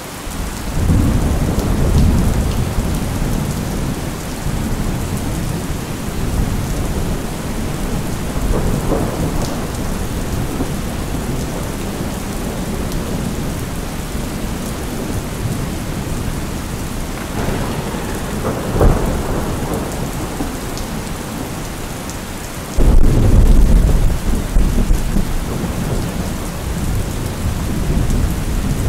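Steady rain with thunder rolling several times, one sharp crack about two-thirds of the way through, and a loud rumble breaking in suddenly near the end.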